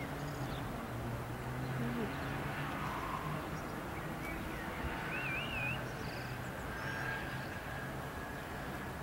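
Outdoor ambience of small birds chirping over a steady low hum, with one short warbling trill about five seconds in.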